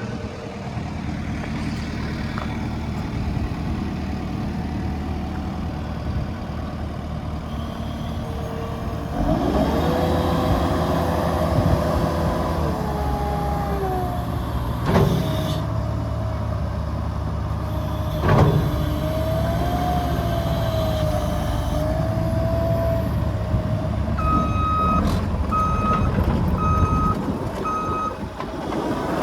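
Case TV370 tracked compact loader's diesel engine running, working harder from about nine seconds in, with a whining tone that bends up and down in pitch and a couple of sharp knocks. Its backup alarm beeps five times near the end as it reverses.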